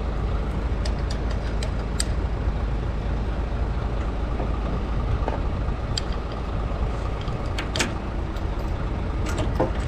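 A vehicle engine running steadily at idle, with scattered light metallic clicks and taps from handling an aerial bracket and its fasteners.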